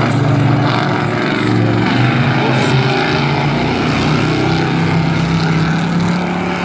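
Race pickup trucks' engines running hard together, the engine note climbing steadily as the field accelerates at the green-flag restart after a caution.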